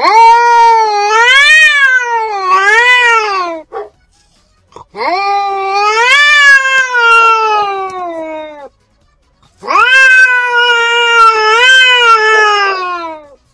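Domestic cat caterwauling: three long, drawn-out yowls, each about four seconds, whose pitch wavers up and down, separated by short pauses. This is the threat yowling of a cat in a vocal standoff.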